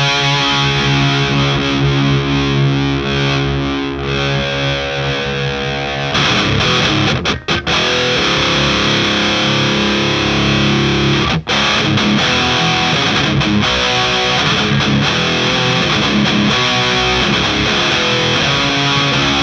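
Electric guitar played through an HM-2-style distortion pedal, a DIY clone of the Boss HM-2: a heavily distorted chord held for about six seconds, then a chugging riff broken by two brief stops.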